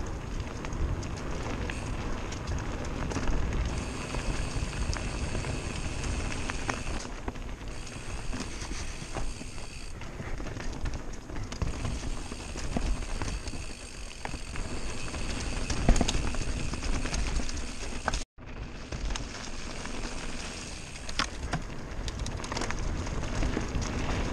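Mountain bike ridden fast down a dirt forest trail: a continuous rough rumble of tyres over dirt and roots, with rattling and many sharp knocks from the bike over bumps. A high buzz comes and goes, and the sound cuts out for an instant about three-quarters of the way through.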